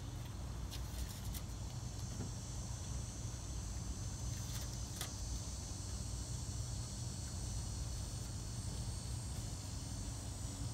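Outdoor ambience: a steady low rumble under a high, thin insect buzz. A few faint sharp clicks about one second and about five seconds in come from a license plate being screwed onto a car's rear bumper.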